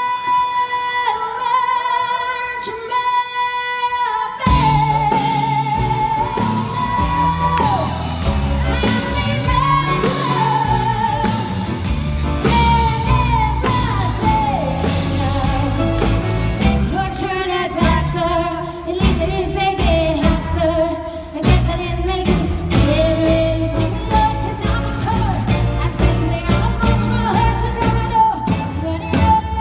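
Live pop performance: a single held note, then a full band comes in about four and a half seconds in, with a female lead vocal singing over it.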